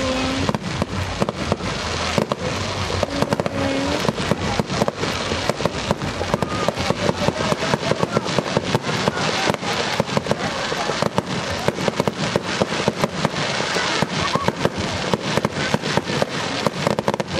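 Fireworks display: a rapid, unbroken barrage of bursts and crackles, several sharp bangs a second.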